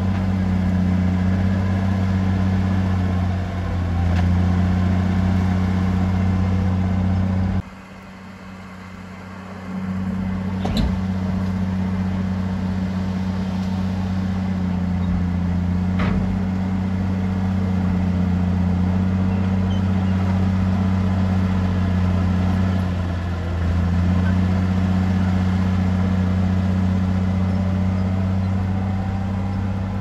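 Heavy diesel machinery engine running steadily with a deep hum. The sound drops away abruptly about eight seconds in and returns about two seconds later, with a sharp click just after it comes back.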